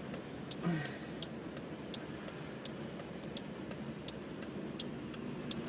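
Car's indicator flasher ticking steadily, about three ticks a second, over the steady hum of the car moving slowly. A brief low sound comes about half a second in.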